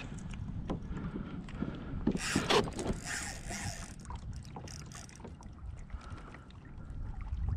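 Sounds of a fight with a large fish from a kayak on a spinning rod: a steady low wind-and-water rumble with scattered clicks, and a louder rushing burst about two seconds in.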